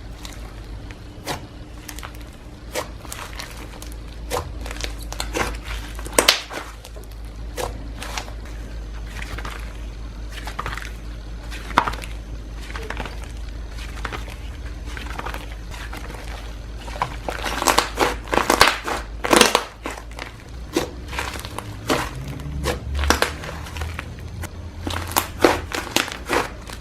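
Slime being worked by hand, giving irregular sharp clicks, pops and crackles that come thicker about two-thirds of the way through and again near the end.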